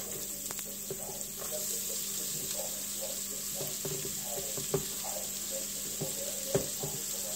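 Chopped red onion and garlic sizzling steadily in hot oil, starting as they are scraped into the pot, with a few sharp taps of the cutting board against the pot's rim.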